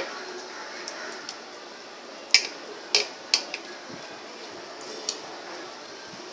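Hands stuffing spice masala into a pomfret's cuts, making a few sharp clicks and taps: one at the start, three in quick succession a little past two seconds in, and one more about five seconds in, over a faint steady hiss.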